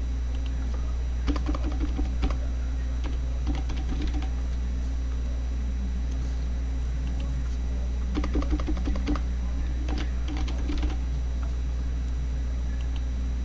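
Computer keyboard typing in short runs of keystrokes, a burst about a second in, another near four seconds, and a longer stretch from about eight to eleven seconds, over a steady low hum.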